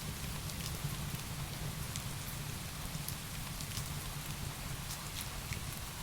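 Heavy rain falling steadily, a dense even hiss with a low rumble underneath, mixed with a wood fire whose scattered sharp crackles tick through it every second or so.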